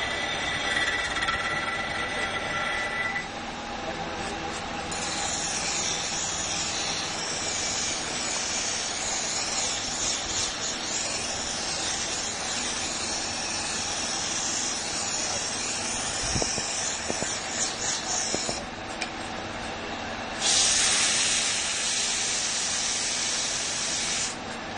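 Rock salt candle holder being turned on an electric lathe, a hand tool scraping the spinning salt. There is a steady machine whine for the first three seconds, then a harsh high hiss of cutting for most of the middle. It breaks off for a couple of seconds, then a louder stretch of scraping comes near the end.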